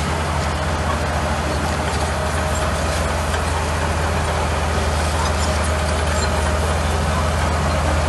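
Crawler bulldozer's diesel engine running steadily under load as the blade pushes a pile of earth.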